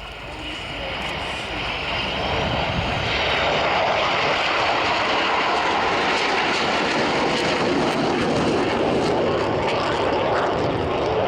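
Jet aircraft formation flypast: the Avro Vulcan XH558 with four F-16s, their engine noise swelling over the first few seconds, then holding loud and steady.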